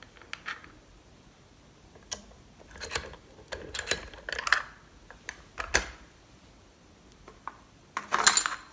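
Scattered sharp metallic clicks and small clatters of a picked Lockwood lock and small tools being handled as its disassembly begins, with a louder burst of rattling near the end.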